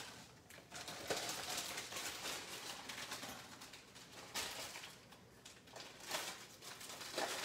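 Plastic vegetable bag crinkling and rustling in the hands, in irregular bursts.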